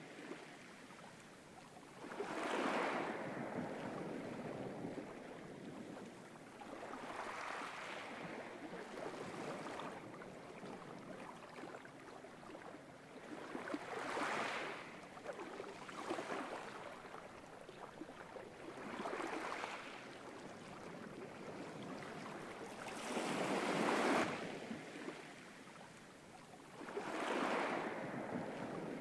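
Small waves washing against a rocky shore, each wash swelling and fading every few seconds.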